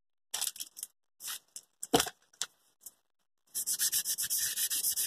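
Hand-rubbing the soleplate of a Philips steam iron with fine sandpaper to scour off burnt-on grime. A few scattered scrapes and a single knock about two seconds in, then, past the middle, fast even rubbing at about six strokes a second.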